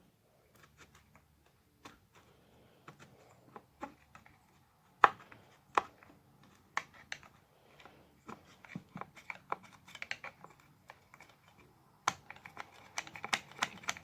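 A small hand tool picking and scraping at plastic, making irregular sharp clicks and scratches. The loudest click comes about five seconds in, and the clicks get busier near the end.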